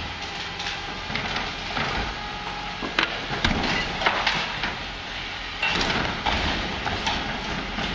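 A Faun Variopress rear-loader's bin lifter raises and tips a large four-wheeled waste container into the hopper. Sharp clanks and knocks come about three to four seconds in, with another cluster of clatter around six seconds, over the steady running of the truck's engine.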